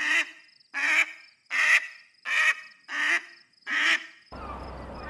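Duck quacking: a steady run of six harsh quacks about three-quarters of a second apart. About four seconds in they stop and a steady low hum takes over.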